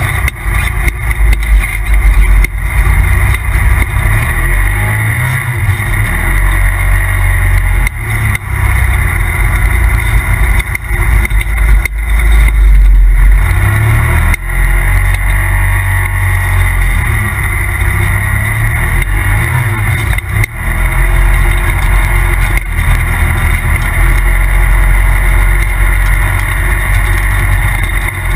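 Polaris RZR Turbo side-by-side running hard on the move, its turbocharged twin-cylinder engine rising and falling in pitch as the throttle is worked, with a couple of brief lifts off the throttle.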